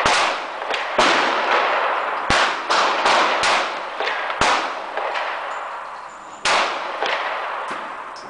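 9mm handgun shots fired one at a time at uneven intervals, about eight sharp cracks. Each crack is followed by a long echo off the range. Several shots come in quick succession around two to three and a half seconds in.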